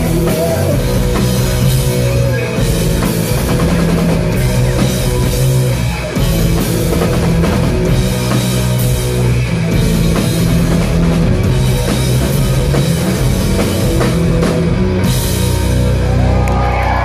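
Live rock band playing loud, with distorted electric guitars, bass and drum kit, heard in the hall from the audience. Near the end the cymbals drop out and a chord rings on as the song closes.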